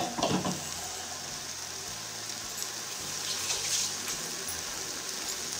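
Okra in masala sizzling steadily in a steel kadai on a gas burner.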